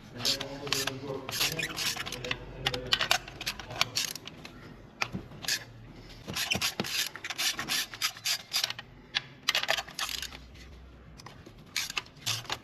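Ratchet wrench with a 16 mm spark plug socket clicking in several quick bursts while spark plugs are unscrewed, with metal tool clinks between the bursts.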